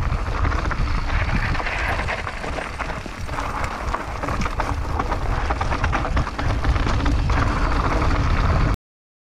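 Mountain bike riding fast down a rocky dirt trail: wind rushing over the microphone, tyres crunching on loose stones and the bike rattling with frequent sharp clicks. It cuts off abruptly near the end.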